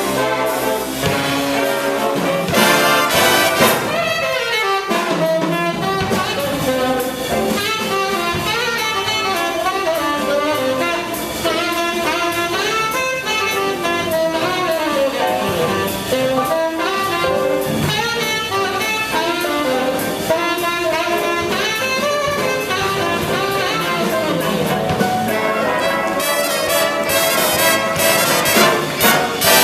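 A jazz big band playing live: saxophones and brass carry the melodic lines over the rhythm section, with louder full-band passages shortly after the start and again near the end.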